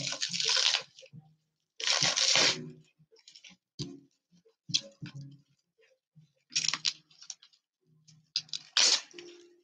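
Plastic stretch wrap and bubble wrap crinkling and tearing as they are pulled off a tumbler, in several short bursts with small crackles between.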